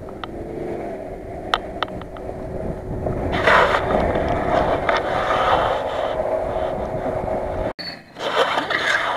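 Nissan Patrol off-roader on tractor tyres driving across a grassy field toward the listener, its engine and tyre noise growing louder about three seconds in. The sound breaks off sharply near the end, followed by a brief scraping rush.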